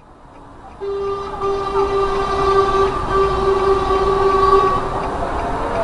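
Train horn sounding one long blast of about four seconds over a rumble that grows steadily louder.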